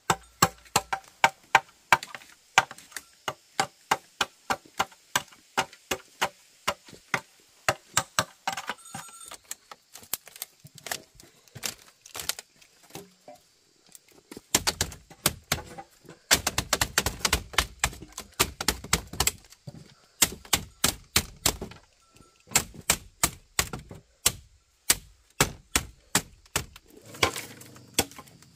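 Hammer driving nails into wood: quick runs of sharp blows, several a second, with short pauses between, some blows ringing.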